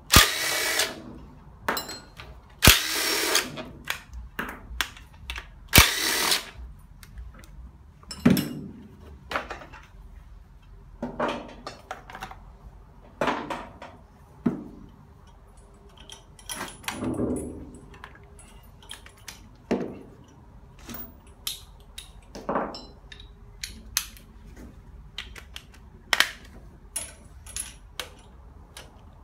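Cordless DeWalt 18V driver spinning bolts out of an engine block in short runs, the longest three near the start, with sharp metallic clicks and clanks of tools and parts being handled in between.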